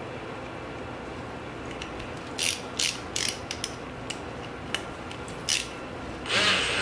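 Hand ratchet clicking in short bursts, starting about two seconds in, as the new bolts of a BMW E30 limited-slip differential's carrier cover are run down before being tightened in a star pattern; a longer burst comes near the end.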